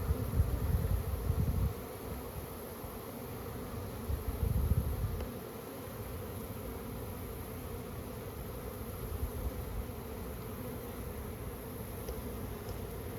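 Honeybee colony buzzing, a steady hum of many bees. Two bursts of low rumbling sit over it, in the first second and a half and again around four to five seconds in.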